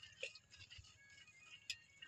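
Near silence: a faint high background with a couple of soft clicks.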